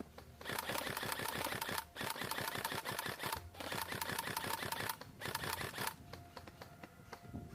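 Airsoft electric rifle firing full-auto: four long bursts of rapid clicking shots over a gearbox whine, with brief breaks between them.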